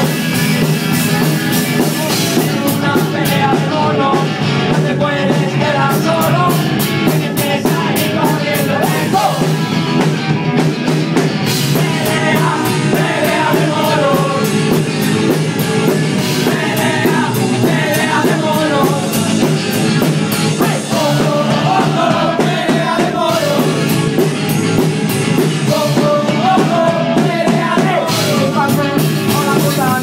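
Live rock band playing loud and without a break: electric guitar over a drum kit, with fast, even cymbal strokes.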